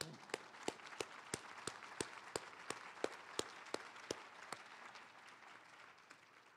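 Audience applauding, with one person's claps close to the microphone standing out at about three a second. The applause thins out and fades away over the last couple of seconds.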